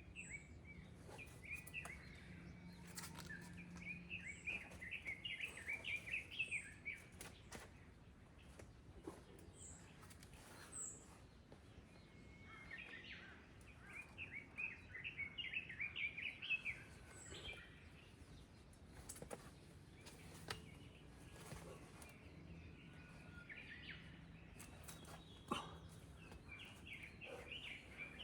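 A songbird singing rapid warbling phrases, about three of them roughly ten seconds apart, with thin high call notes and a few faint ticks between them.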